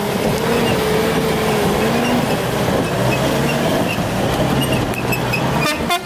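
Off-road 4x4's engine revving hard under load, with a wavering pitch, as it struggles up a steep muddy slope in two-wheel drive. A few sharp clicks at the very end.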